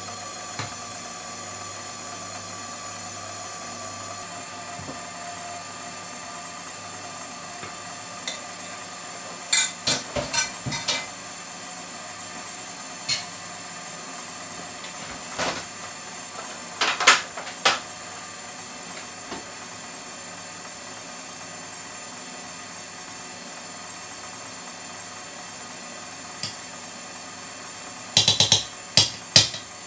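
Stand mixer running at low speed, a steady motor hum as it beats a gelatin and strawberry jam mixture into whipped evaporated milk. Scattered clinks and knocks of kitchenware over it, with a cluster of them near the end.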